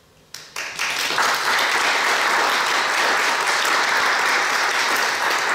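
Audience applause in a lecture hall. A few scattered claps start about half a second in and quickly fill out into dense, steady applause.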